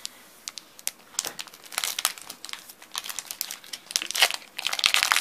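Pokémon Sun & Moon booster pack's foil wrapper crinkling as it is handled and torn open by hand: a run of sharp crackles that grows denser and louder near the end.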